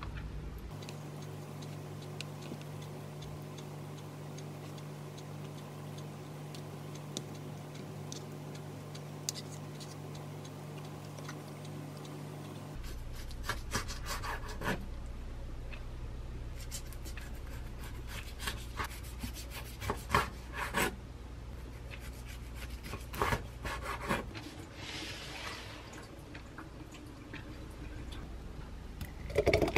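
Hands rolling soft dried persimmons make faint rubbing sounds over a steady low hum. From about halfway, a serrated knife slices through the persimmon rolls onto a wooden cutting board, giving a run of knocks and sawing scrapes.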